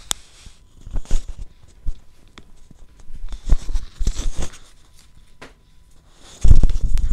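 Handling noises from hands working on a diamond painting canvas: scattered taps and short rustling scrapes, then a burst of heavy thuds and rubbing about six and a half seconds in.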